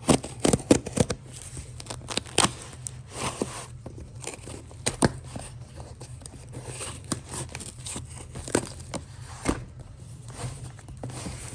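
A shipping package being torn open and handled: crinkling, tearing plastic packaging with scattered sharp clicks and taps, busiest in the first second. A steady low hum runs underneath.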